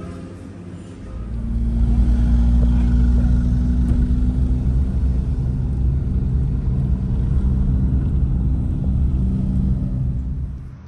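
Low, steady rumble of a moving road vehicle with a constant engine hum, starting about a second in and cutting off abruptly near the end.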